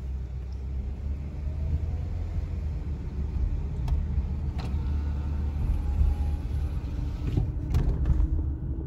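Car engine and tyre rumble heard from inside the cabin as the car pulls away and drives off: a steady low rumble with a faint engine hum above it.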